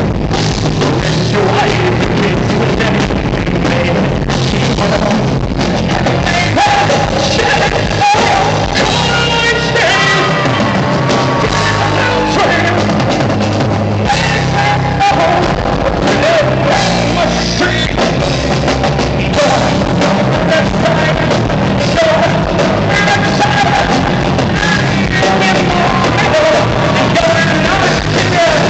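Rock band playing live, with drums, guitar and a singer carrying the melody over them, loud and continuous.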